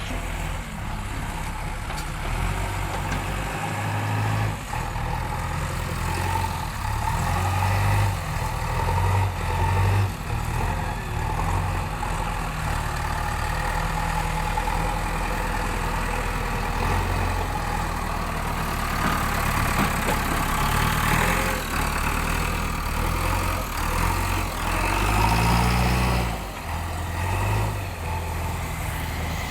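JCB backhoe loader's diesel engine running, its engine speed rising and falling several times, most clearly in the first third and again near the end.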